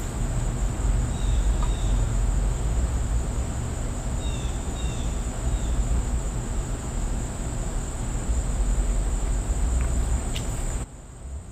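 Steady high-pitched insect drone over a loud low rumble, with a few short chirps; the rumble drops away suddenly near the end.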